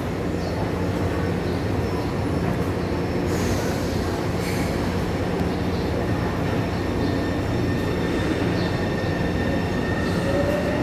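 Taipei Metro C301 steel-wheel train humming steadily at the platform, then starting to pull away near the end with a rising motor whine.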